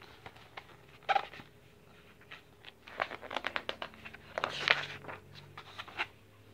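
Pages of a hardcover picture book being handled and turned: paper rustling with a string of small clicks and taps, loudest about a second in and again near the middle as the page flips over.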